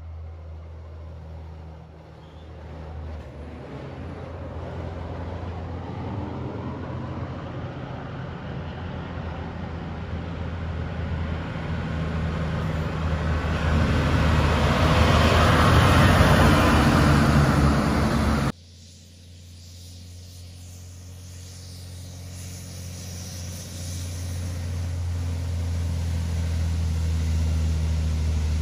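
Diesel tipper trucks with dog trailers driving past on a highway: engine drone and tyre noise build to a loud pass about two-thirds of the way in. After an abrupt cut, another truck's engine drone grows steadily louder.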